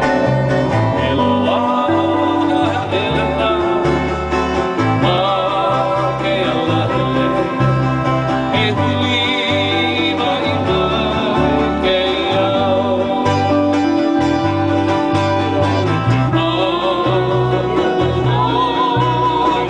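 Live Hawaiian song: a man singing into a microphone over strummed ukulele and guitar, with low bass notes changing with the chords.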